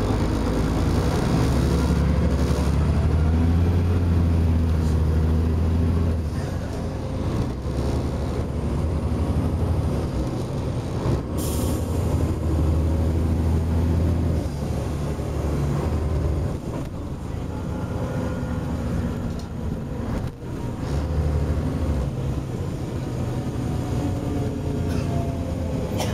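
Volvo Olympian double-decker bus under way, heard from a passenger seat: a low engine drone that swells and eases several times as the bus pulls and changes gear. A short hiss sounds about eleven seconds in.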